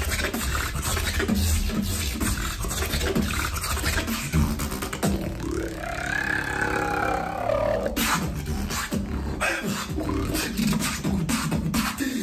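Solo beatboxing: a steady beat of mouth-made kick and snare hits. About five seconds in, the beat gives way to a pitched vocal tone that rises and falls for a couple of seconds before the hits come back.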